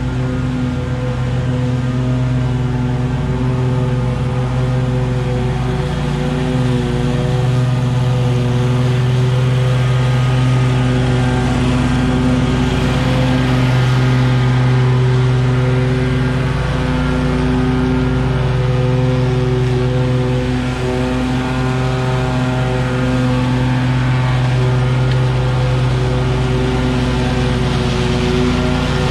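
Red stand-on commercial mower's engine running steadily while mowing tall overgrown grass, its hum a little louder in the middle as the mower passes close by.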